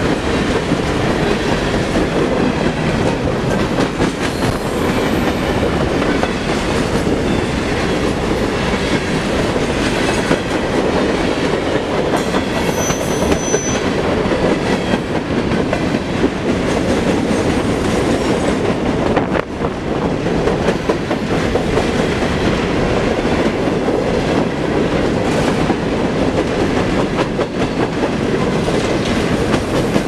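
Loaded coke train of open-top hopper cars passing close at speed: a continuous rumble and clatter of steel wheels on the rails. A brief high-pitched squeal sounds about thirteen seconds in.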